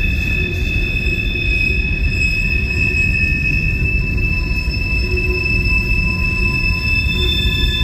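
Freight train hopper cars rolling past with a heavy low rumble of steel wheels on rail, under a steady high-pitched wheel squeal made of several tones.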